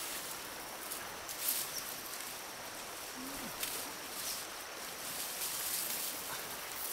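Steady outdoor background hiss with a few brief rustling or knocking noises and one short low call about three seconds in.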